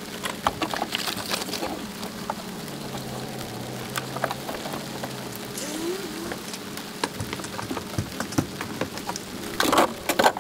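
Rain pattering on a wet truck deck and the camera, a scatter of small ticks over a steady low hum. A louder clatter comes near the end.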